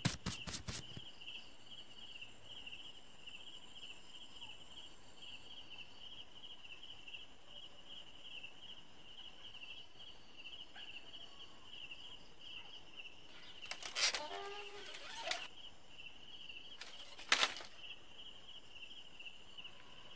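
Crickets chirping as a steady, pulsing, high-pitched night chorus. A few short clicks sound in the first second, brief rustling noises come about two-thirds of the way through, and a single sharp click follows a few seconds later.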